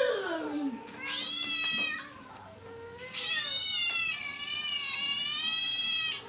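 Cat meowing: a short meow about a second in, then a long drawn-out meow lasting about three seconds.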